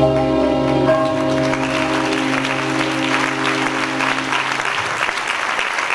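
Audience applause swells from about a second and a half in, over the last held chord of the rumba music, which stops near the end.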